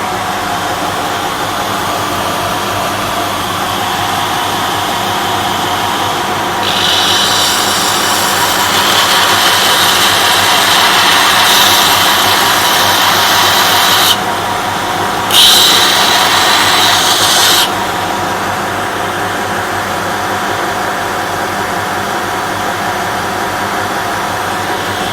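Homemade belt grinder with a 250 W motor running steadily, its sanding belt grinding a workpiece: a louder, hissy grinding sound sets in about a quarter of the way in, breaks off for about a second, resumes briefly, and stops about two-thirds through, leaving the motor hum.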